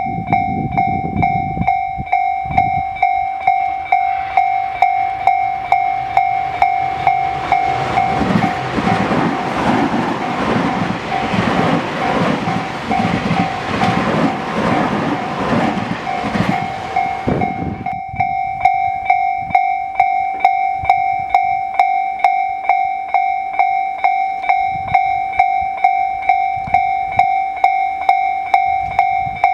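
Japanese level-crossing alarm bell dinging steadily, about two strikes a second, while a train runs through the crossing from about two seconds in until about eighteen seconds in, its wheels clattering over the rail joints. The bell keeps ringing after the train has gone.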